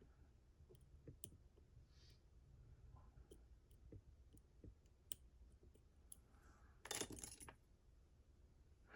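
Faint, irregular ticks and clicks of lockpicks and a tensioner working inside a Mottura CP6 dimple lock's keyway as pins and rotors are manipulated, with a brief louder scrape about seven seconds in.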